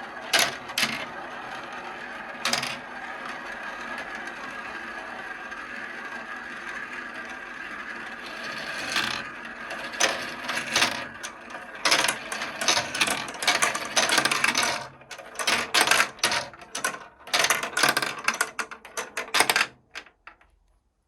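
Marbles running down a marble-run track: a steady rolling rattle broken by a few clacks, then a dense run of sharp clicks and clacks as the marbles drop and strike the track, stopping suddenly about a second before the end.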